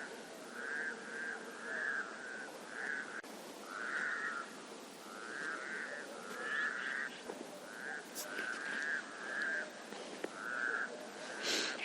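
Frogs croaking in a steady run of short, similar calls, about one to two a second, over a faint background hiss. Two brief high chirps cut in, one about two-thirds of the way through and one near the end.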